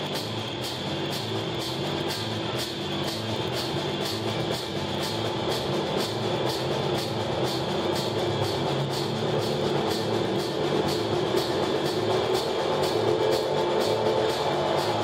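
Live band playing with several congas and an electric guitar, the drums keeping a steady beat of about three strokes a second while the music grows gradually louder.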